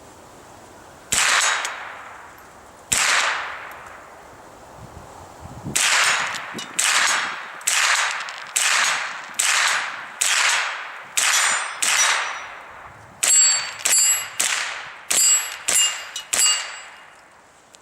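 Walther/H&K G36 .22 LR rifle firing seventeen shots: two spaced shots, then a steady string of eight at about one a second, then seven quicker shots. In the quick string each shot is followed by a short ringing ding, as of hits on a steel target.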